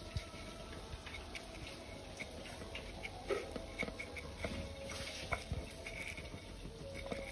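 Hands pressing and patting a pork fillet into a bowl of dry breadcrumbs: irregular soft crackles and pats as the crumbs are pushed onto the meat, over a faint steady hum.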